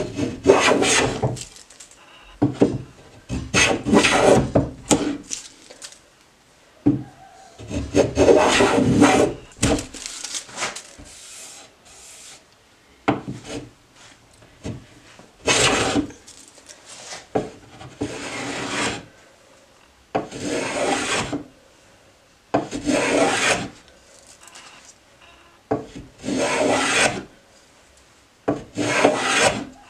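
Hand plane shaving the edge of a board in repeated strokes, about a dozen rasping passes of a second or so each with short pauses between them.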